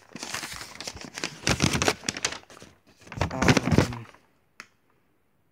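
Rustling and crinkling noise, louder twice, that stops about four seconds in, followed by one short click.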